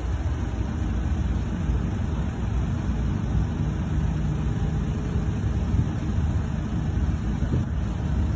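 A running engine gives a steady low rumble with a faint hum in it.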